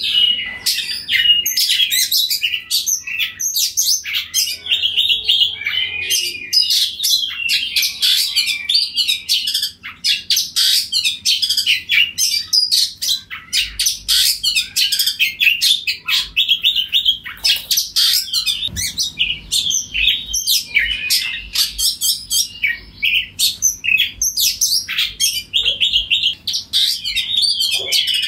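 Oriental magpie-robin singing nonstop in full voice: a rapid, unbroken run of loud, varied whistles and chattering notes, high-pitched throughout.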